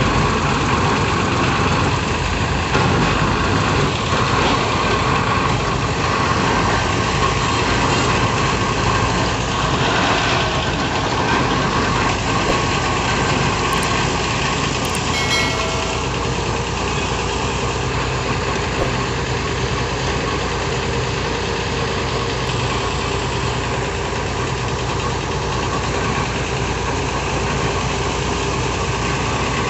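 Diesel engine of a hydraulic piling rig running steadily, with a short clank about halfway through.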